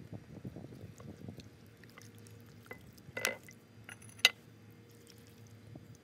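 Hands rubbing oil over raw chicken skin, making soft wet squishing sounds. The chicken is turned over with a wet slap about three seconds in, and a single sharp clink follows about a second later.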